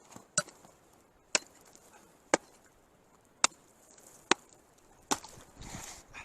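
Six sharp chopping strikes on ice, about one a second, reopening a frozen-over fishing hole, followed by a short rustle near the end.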